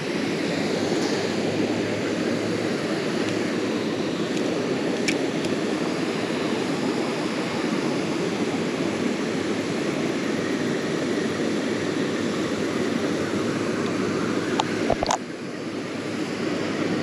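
Steady rushing of water flowing over rocks. A single knock comes about 15 seconds in, after which the rushing is slightly quieter.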